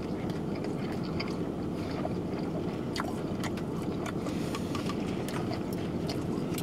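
Two people chewing mouthfuls of cheesesteak sandwich, with scattered small wet mouth clicks, over a steady low rumble in a car cabin.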